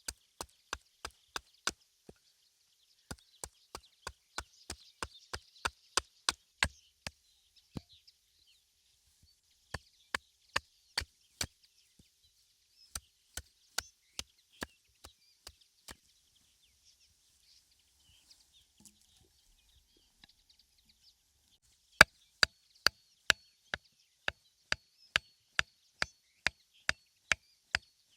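Wood being chopped by hand in runs of sharp, even strokes, about two a second, with a few pauses between runs.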